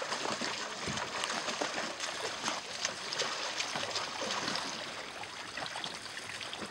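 Seawater sloshing and trickling, a steady wash of noise scattered with many small splashy ticks.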